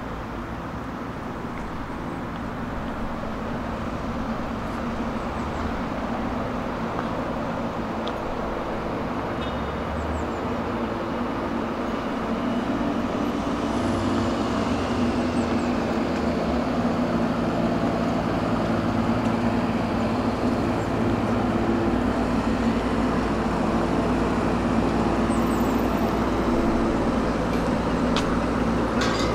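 City road traffic: vehicles running and passing, with a low engine hum that grows gradually louder.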